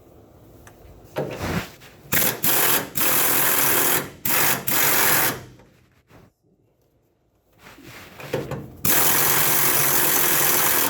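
Pneumatic air wrench run in several short bursts on a seized shock-absorber bolt, then one longer burst of about two seconds near the end; the bolt does not budge, seized in place.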